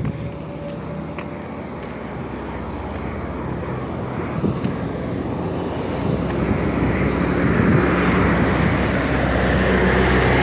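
Step-van ice cream truck driving toward the listener, its engine and road noise growing steadily louder as it draws close, then holding level near the end.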